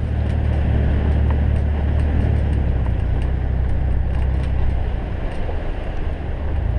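Jeep JK Wrangler driving along a sandy beach track, heard from a camera on its bonnet: a steady low rumble of engine and tyres.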